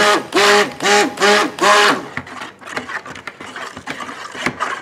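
Stick blender pulsed in short bursts, about two a second, its motor whining up and falling back with each burst as it blends titanium dioxide into soap batter. After about two seconds the pulsing stops, leaving quieter light knocks and scrapes of the blender in the tub.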